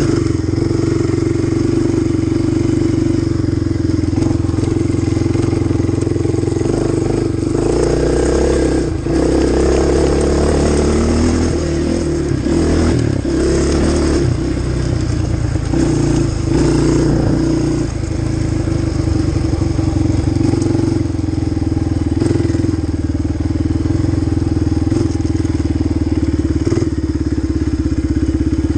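Sport quad ATV engine running under throttle, loud and steady, its pitch rising and falling several times partway through as the rider speeds up and backs off.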